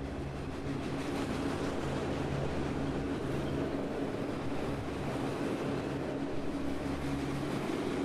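Freight train of enclosed autorack cars rolling past, a steady rush of wheels on rail. A low droning music note pulses underneath.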